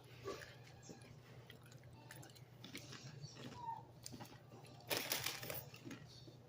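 Faint chewing and eating sounds with small mouth clicks over a steady low hum, and a short louder burst of crunchy noise about five seconds in.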